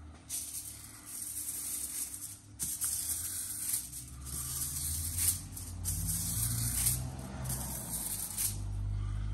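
Aluminium foil rustling and crinkling on a benchtop as a block of butter is rubbed across it in repeated strokes, a dry hissing scrape that comes and goes. A low steady hum sits underneath and grows louder in the second half.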